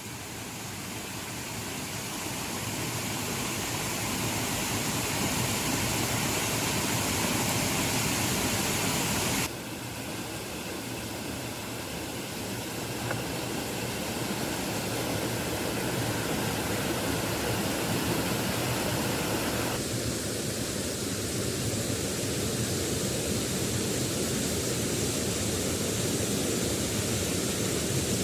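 Steady rushing noise of falling or running water, which rises over the first few seconds and changes character suddenly twice, about a third and two thirds of the way through.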